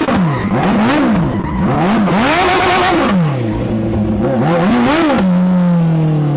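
Lawn mower's Suzuki Hayabusa inline-four motorcycle engine revved up and down in quick repeated sweeps, about once a second. Near the end the revs hold and then slowly drop away.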